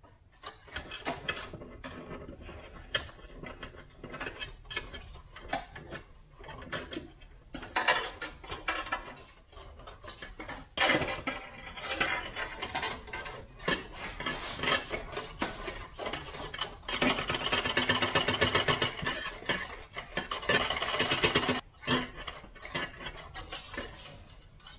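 Stiff steel wire being fished through a hole in a Subaru WRX's firewall, scraping and clicking against the sheet metal in irregular bursts as it snags inside. About two-thirds of the way through comes a few seconds of fast, continuous rattling.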